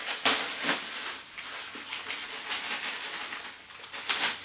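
Packaging and stand parts handled during an unboxing: irregular rustles and clicks, loudest about a quarter second in, just over half a second in and near the end.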